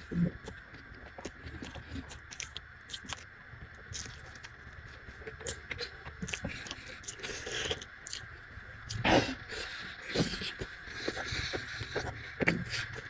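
Close-up eating sounds of a mouthful of noodles and rice: chewing and slurping with many small clicks, and a few louder bursts in the second half.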